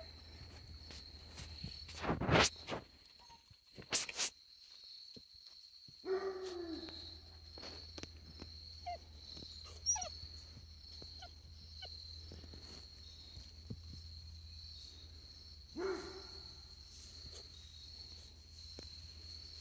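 Basset hound puppy whimpering, two short falling cries about six seconds in and again near the end of the clip. Two loud bumps come early on, and a steady high whine sits in the background.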